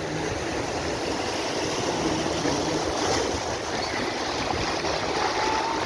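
Steady rushing of sea water and wind, with wind buffeting the microphone.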